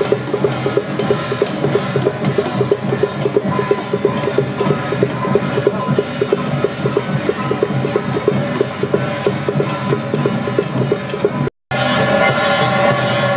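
Temple-festival percussion music: drums and clappers beating a quick, steady rhythm of about five strokes a second. About three-quarters of the way through, the sound cuts out for a moment and comes back with held melodic notes over the beat.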